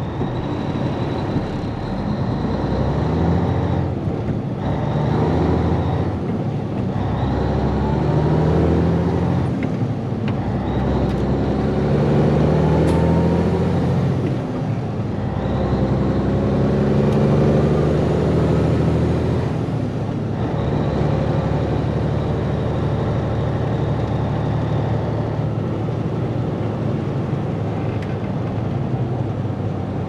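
Peterbilt 362 cabover's Caterpillar diesel engine heard from inside the cab, pulling away and accelerating through the gears: the engine note climbs, then breaks and drops at each upshift, about six times, before settling into a steadier drone as the truck cruises.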